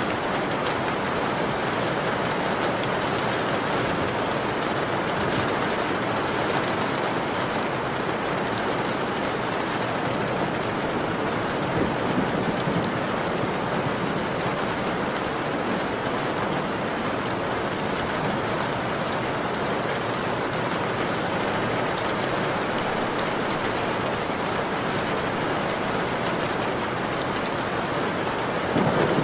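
Steady rain falling: an even, continuous hiss with scattered faint drop ticks.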